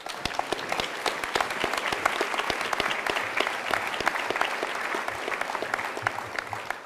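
Audience applauding: many people clapping together, starting suddenly and thinning out near the end.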